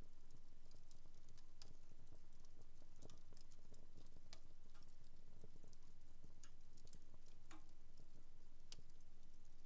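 Wood fire in a home fireplace crackling: irregular sharp snaps and pops, a few each second, over a faint steady low hum.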